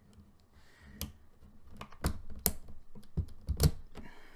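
Sharp plastic clicks and knocks of keycaps being pried off a Ducky One 2 Mini keyboard with a keycap puller, about seven separate clicks, the loudest near the end.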